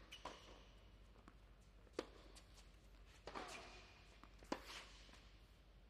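Tennis rally on an indoor hard court: a tennis ball struck back and forth by rackets, with four sharp hits about one to one and a half seconds apart and fainter ball bounces and footfalls in between.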